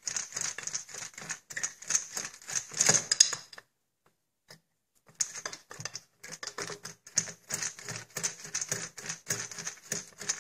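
Rapid clicking and rattling of a tool turning out the long bolt that holds the factory buttstock on a 12-gauge pump shotgun. The clicking breaks off for about a second and a half a little before the middle, then resumes.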